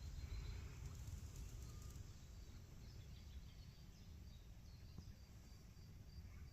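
Quiet outdoor ambience: a low steady rumble of wind or microphone handling, with an insect chirping in short even high pulses, about three a second, that settle into a regular rhythm from about the middle on.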